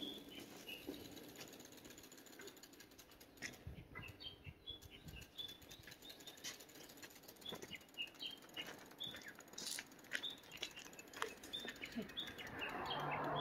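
A small bird chirping: a long series of short, high, slightly falling notes, a few each second, with scattered sharp clicks between them. A hiss of noise swells up near the end.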